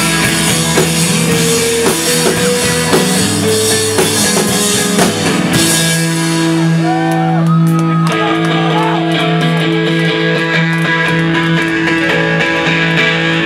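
Live emo rock band playing loud with electric guitars, bass and drums; about five and a half seconds in the drums drop out and the guitars ring on in long sustained chords, with a few sliding notes, as the song winds down.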